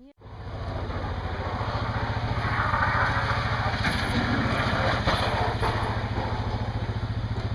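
An engine running steadily, with a rapid even pulse and a rushing noise over it.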